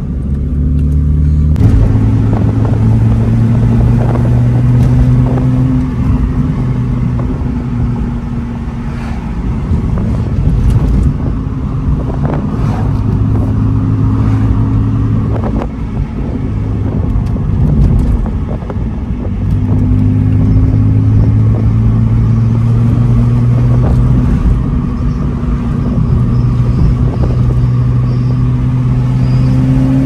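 BMW 335i's turbocharged inline-six engine running as the car drives, a steady low drone over road rumble that swells and eases off several times. The engine is boosting properly again, which the owner puts down to a boost pipe now fully seated.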